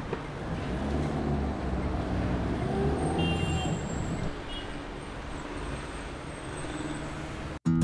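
Dubbed sound effect of a heavy truck engine running with road noise: a steady sound, heavy in the low end, that eases a little about halfway through.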